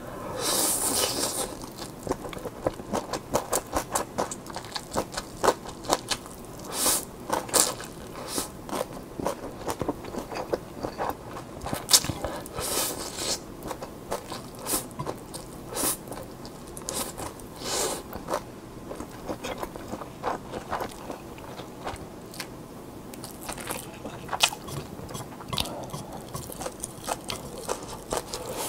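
Close-miked eating of instant yakisoba noodles: noodles slurped in from chopsticks in several longer rushes, between them a steady run of wet chewing and lip-smacking clicks.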